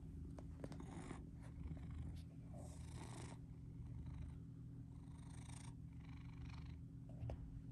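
Domestic cat purring steadily, close to the microphone. The purr swells and eases in phases of about a second with its in and out breaths.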